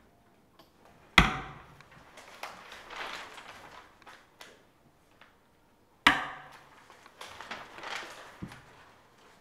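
Two sharp, loud knocks about five seconds apart, each fading briefly, with the soft rustle of book pages being leafed through in between.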